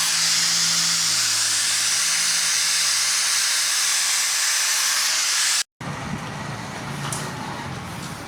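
A loud, steady hiss that cuts off abruptly about five and a half seconds in, followed by a quieter rushing noise with a few light clicks.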